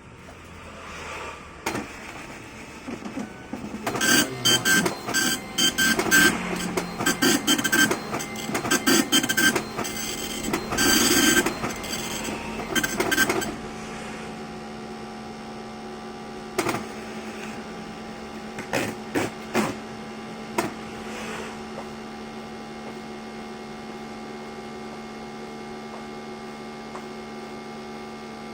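Epson LQ-690C dot-matrix impact printer making an abnormal noise, a fault in a brand-new unit: about four seconds in, a loud, rapid rattling clatter starts and runs for about ten seconds. The clatter then stops, leaving a steady hum broken by a few single clicks.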